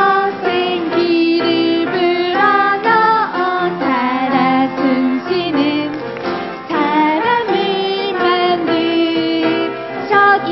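Children's worship song: voices singing a melody over instrumental accompaniment.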